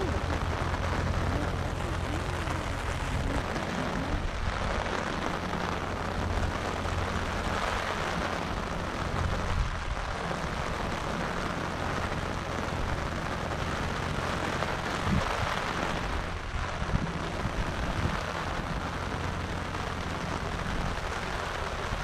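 Steady rain falling, an even hiss over a constant low rumble.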